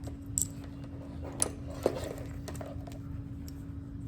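Objects being handled: a few light clicks and clinks, the sharpest three about half a second, one and a half and two seconds in, over a steady low hum.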